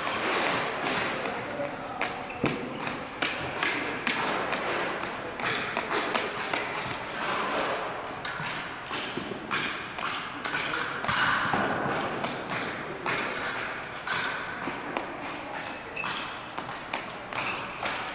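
Épée fencing bout: irregular thumps and stamps of the fencers' shoes advancing and retreating on a wooden gym floor, mixed with sharp taps of the blades meeting.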